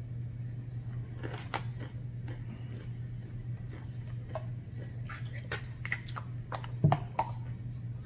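Close-up eating sounds: chewing fried catfish and fries, with small clicks and light crinkles of the paper food liner, over a steady low hum. One louder smack comes near the end.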